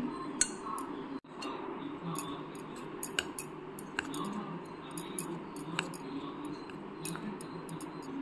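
Metal spoon stirring flour and egg in a bowl, with irregular light clicks and scrapes as the spoon knocks against the bowl, a few times a second.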